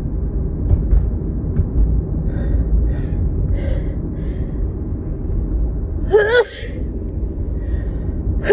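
A woman with a cold takes a few short breaths, then gives a loud, wavering gasp about six seconds in as a sneeze builds. The sneeze bursts out at the very end. A steady low car road rumble runs underneath.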